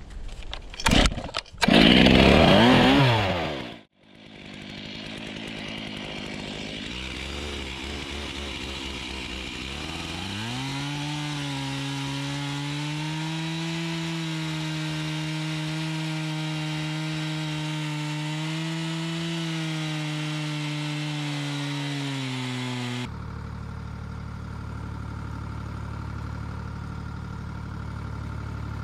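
Two-stroke chainsaw cutting fallen branches: loud and uneven for the first few seconds, then after a sudden break it runs up and holds a steady high pitch through a cut. About two-thirds of the way in it gives way abruptly to the Lamborghini tractor's engine running steadily at a lower pitch.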